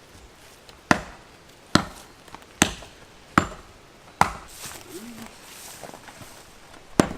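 Small hiking axe chopping a wooden stick: five sharp blows about one a second, a pause of nearly three seconds, then one more blow near the end.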